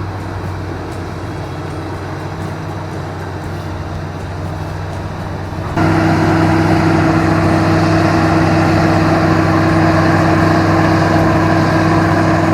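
A heavy vehicle's engine running steadily at a constant pitch, stepping up abruptly to a louder, brighter sound about six seconds in.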